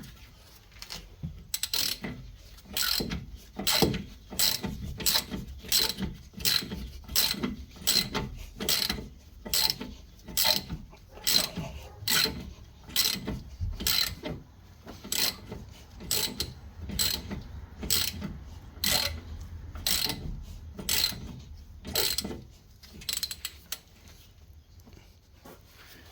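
Hand ratchet wrench clicking in steady back-and-forth strokes, about one to one and a half strokes a second, undoing a fastener on a car's front spindle. The strokes get quieter and stop near the end.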